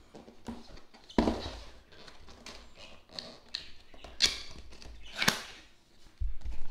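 Cardboard headphone box being handled and opened: irregular rustling, scraping and sliding of the inner box and its pull tab, with sharper scrapes and knocks about a second in and again around four and five seconds.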